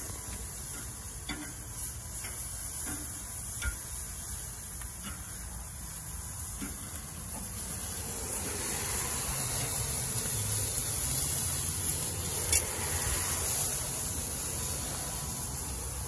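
Chicken tenders sizzling on a hot kamado grill grate, with metal tongs clicking and scraping against the grate as the pieces are turned; the sharpest clink comes about twelve and a half seconds in.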